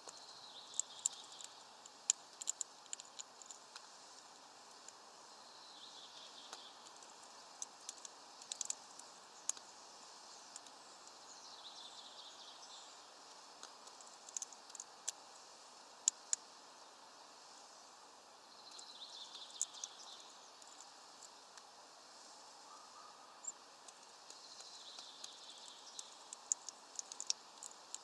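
Faint distant songbird singing short high phrases about every six seconds, over a low steady outdoor hiss. Scattered sharp ticks come in between.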